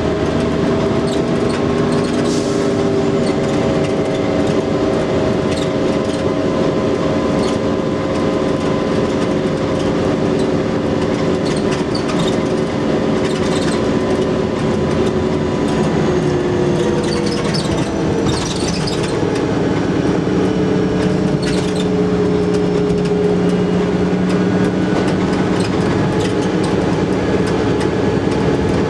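Diesel engine of Stagecoach bus 16367 heard from inside the saloon, working hard under way with road noise, its steady drone dropping in pitch at a gear change about two-thirds of the way through. Occasional short rattles from the bodywork.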